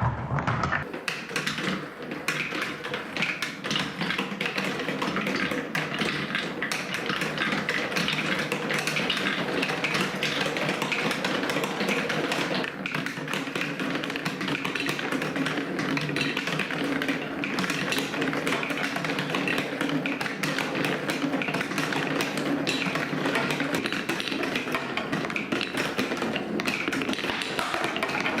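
Many balls clattering down plastic TrixTrack wave-slope marble run steps: a dense, continuous patter of rapid clicks and taps that never lets up.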